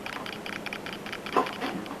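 Quick, light, irregular clicking, several clicks a second, with one louder knock about one and a half seconds in.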